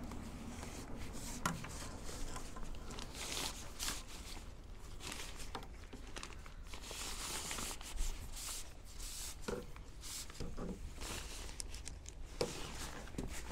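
Rustling and crinkling of a Trekmates Squall Pro bivi bag's fabric as it is handled and spread out, with a few short knocks.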